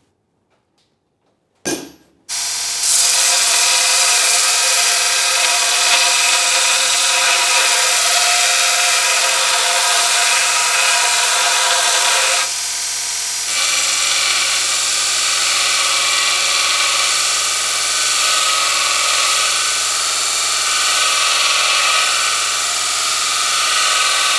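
A 2x42 Craftsman belt sander running with a forged leaf-spring steel chisel blank pressed against the belt, giving a loud, steady grinding hiss over the motor's hum. The grinding eases for about a second halfway through, and a short sharp sound comes just before it starts.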